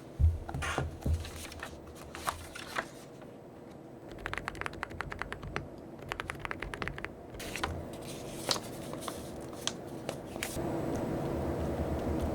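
Typing on a mechanical keyboard: scattered key clicks, then a fast run of keystrokes in the middle. A steady low rumble comes in near the end.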